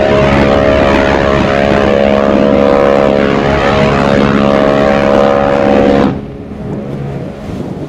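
Ship's horn sounding one long, steady blast of several tones at once, cutting off suddenly about six seconds in. Wind and water noise remain after it stops.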